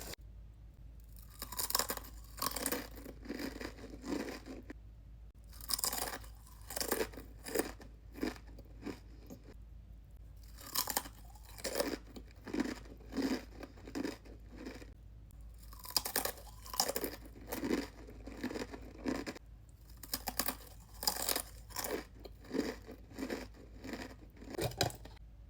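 Close-up chewing of crunchy Takis rolled tortilla chips: crisp crunches about one or two a second, in runs broken by short pauses.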